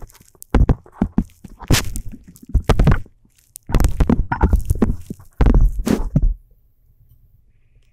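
Handling noise on a phone's microphone: a run of irregular thumps and rubbing scrapes as a hand grips and brushes over the phone. The noise stops about six seconds in.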